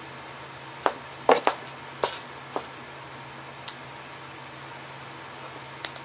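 A series of short, sharp clicks and taps as small hard model parts and tools are handled, bunched together around one to two and a half seconds in, with a couple of single ticks later, over a steady low hum.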